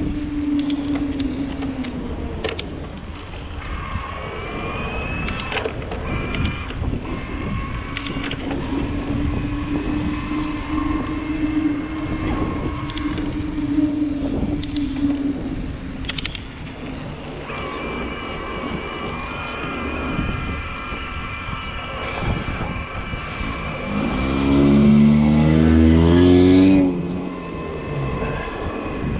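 Trek Powerfly 4 e-bike's mid-drive motor whining steadily while riding, over tyre and wind noise, with scattered clicks and rattles. Near the end a car engine close ahead gets loud for a few seconds, its pitch stepping up and down.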